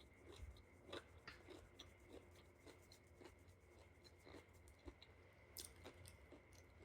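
Faint close-up chewing: soft mouth clicks and small crunches every second or so, one a little louder about five and a half seconds in, over a faint steady high hum.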